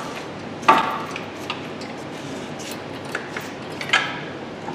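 A few sharp metallic clanks and clinks of metal tools and parts being handled, each ringing briefly. The loudest comes just under a second in and another near the end.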